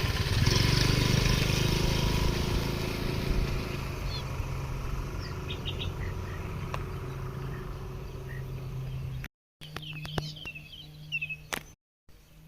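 A vehicle engine running steadily with a low hum, slowly fading, with a few faint bird chirps. After a sudden cut, birds chirping and a few clicks.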